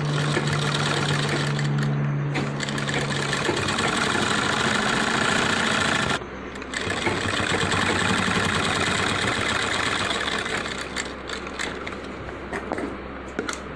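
Sewing machine running, stitching a seam along a shirt's front placket. It stops briefly about six seconds in, runs again, then slows into a few separate clicks near the end.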